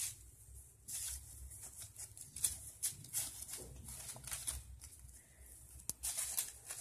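Soft, irregular rustling and crinkling of craft paper as paper strips are woven through slits cut in a paper sheet, with a sharp tick about six seconds in.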